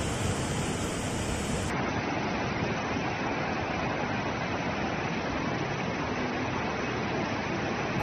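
Steady rushing roar of floodwater jetting out of a large dam's open spillways, a dense even noise without pauses. About two seconds in it turns slightly duller as the highest hiss drops away.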